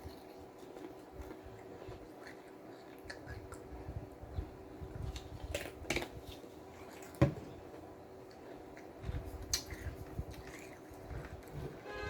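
Close-up eating sounds: chewing with scattered crunches and mouth clicks, the loudest crunch about seven seconds in, over a faint steady hum.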